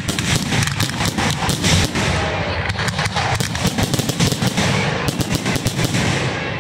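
Aerial fireworks shells bursting in rapid succession: a dense, unbroken barrage of sharp bangs and crackles, several a second.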